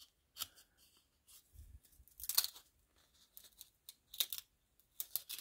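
Cardboard baseball cards being slid and peeled apart in the hands, a string of short papery scrapes, the loudest about two seconds in and again about four seconds in. The cards are sticking together in the pack.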